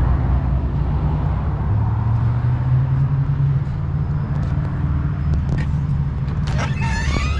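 Low, steady motor rumble that grows stronger about two seconds in. Near the end a door latch clicks and voices start.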